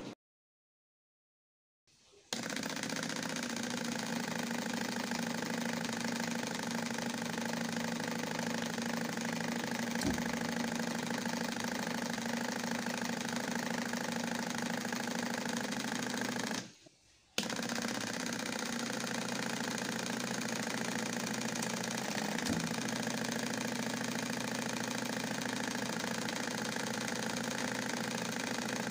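Small DC motor running steadily with a hum and rattle as it drives the homemade stove's air pump; it breaks off briefly a little past halfway, then runs on until it is switched off at the end.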